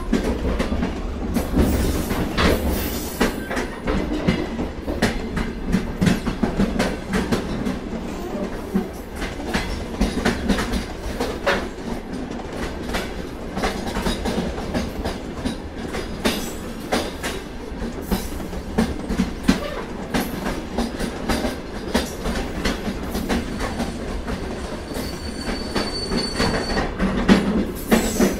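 Freight train cars rolling past: a steady low rumble with irregular clacking and knocking of the wheels over the rail joints, and a faint high wheel squeal near the end.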